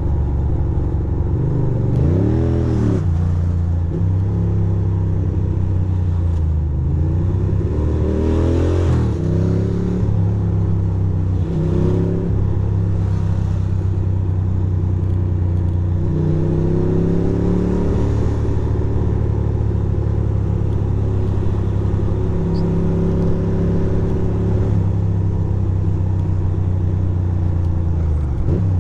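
The 2006 Ducati Monster 620's air-cooled V-twin engine running under way in traffic, its revs rising and falling several times as the rider accelerates and eases off.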